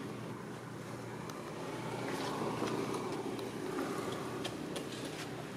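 Distant motor vehicle engine running steadily, swelling as it passes about halfway through and then easing off, with a few faint light clicks.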